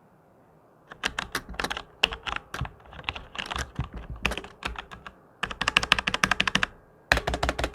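Logitech G413 mechanical keyboard with Romer-G Tactile switches being typed on: fast runs of keystrokes starting about a second in, in bursts with short pauses between them.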